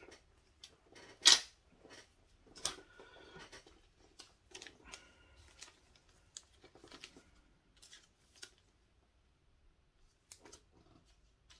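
Pokémon trading cards and a booster-pack wrapper handled on a table: scattered light clicks, taps and rustles, with one sharp click about a second in.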